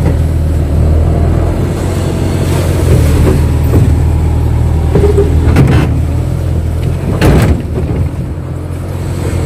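Kato excavator's diesel engine running steadily under load, heard from inside the cab as the machine swings and digs, with a few short knocks and clanks; the loudest knock comes a little past seven seconds in.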